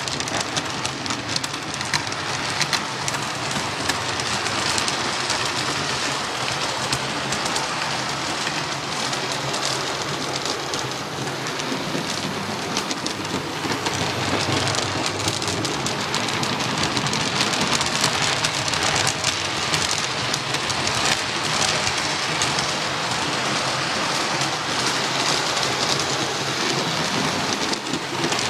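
Model railway train, a Castle class locomotive model hauling coaches, running round the layout: a steady, dense rattle of wheels on the track, full of fast fine clicks.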